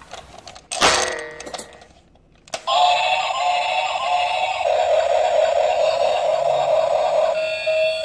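Battery-operated plastic toy train: a brief electronic sound about a second in, then a click about two and a half seconds in as it is switched on, after which its sound chip plays an electronic melody of held, stepping beeping notes.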